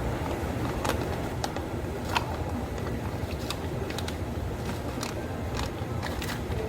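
Cafe counter work sounds: a steady low machine hum under scattered light clicks and taps of cups and utensils being handled, the sharpest about two seconds in.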